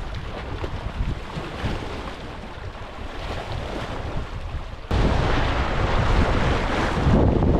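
Wind buffeting the microphone as a steady rumbling hiss, becoming suddenly louder about five seconds in.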